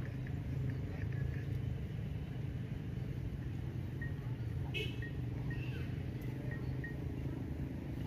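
Steady low background rumble of an outdoor exhibition ground, with faint short high chirps through the middle.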